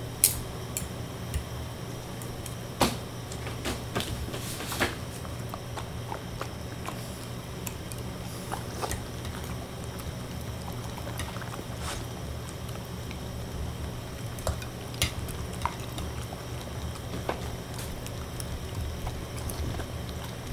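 Shiba Inu eating salmon-head scraps off a ceramic plate: wet chewing and licking with scattered sharp clicks, over a steady low hum.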